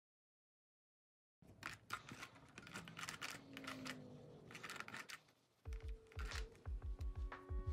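Crisp rustling, scratching and clicks of quilted cotton fabric being handled and pressed with an iron on a wool pressing mat, starting after a second and a half of dead silence. Background music with a steady beat comes in about five and a half seconds in and is the loudest thing near the end.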